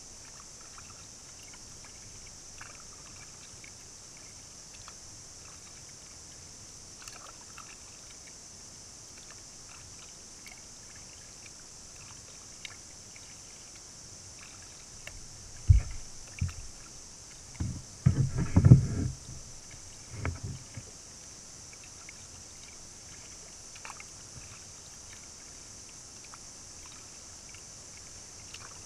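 Kayak paddling on calm, flat river water: a faint steady hiss with light drips and small splashes. A few dull, low knocks come a little past the middle.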